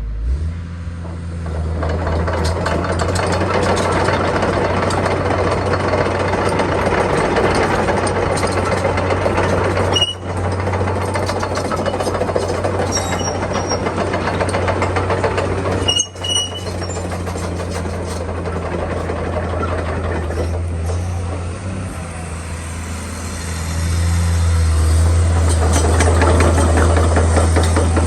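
Komatsu PC210-10M0 excavator's diesel engine running steadily, with a low, constant engine tone. There are two brief breaks, about ten and sixteen seconds in, and it grows louder over the last few seconds.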